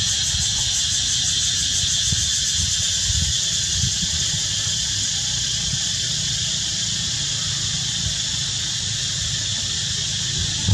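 Steady, high-pitched drone of cicadas with a fast, even pulse, over a low, uneven rumble.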